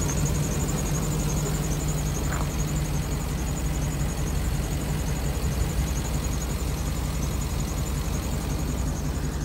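Ford 5.4-liter V8 engine of a 2014 E350 box truck idling steadily, heard from the open engine bay.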